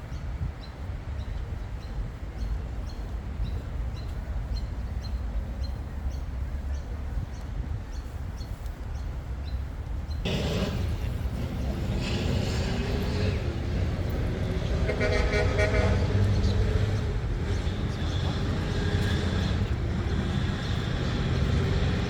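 Steady low rumble, with a horn sounding briefly about fifteen seconds in.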